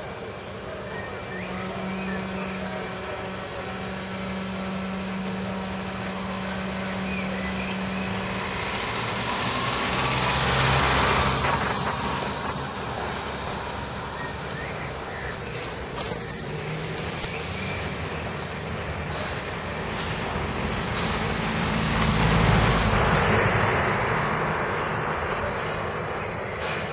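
Road traffic noise that swells twice, about ten seconds in and again about twenty-two seconds in, as vehicles pass, over a steady low hum.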